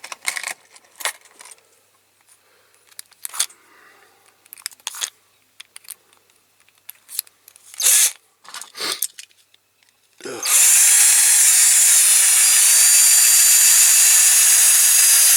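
Scattered small clicks and knocks of handling, then about ten seconds in a power drill starts and runs steadily with a motor whine, drilling out a rivet in a die-cast toy car's base with a bit that is blunt and needs sharpening.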